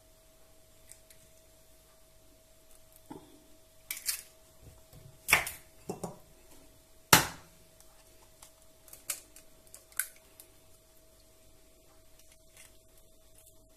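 Eggs being cracked against a plastic mixing bowl and their shells pulled apart: a handful of sharp taps and cracks, the loudest about seven seconds in, with lighter shell clicks near ten seconds. A faint steady hum runs underneath.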